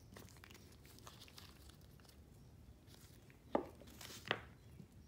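Faint handling noises of nitrile-gloved hands with a small ink bottle and a clay piece on a workbench: light rustles and clicks, with two sharper taps about three quarters of a second apart past halfway.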